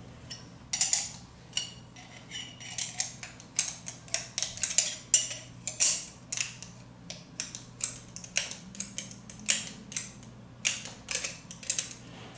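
Spanner wrench clicking and clinking against the metal top closure of a pneumatic valve actuator as the closure is turned out, a quick irregular series of light metallic clicks over a faint steady low hum.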